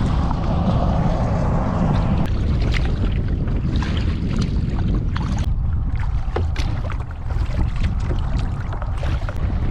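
Kayak paddling: water splashing and dripping off the paddle with short sharp ticks, over a steady low rumble of wind on the microphone.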